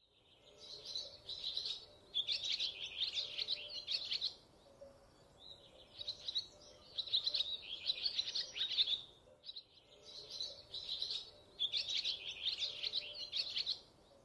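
Small birds chirping and twittering in quick trills. The same phrase of two chirping bursts comes back three times, about every four and a half seconds, like a looped recording.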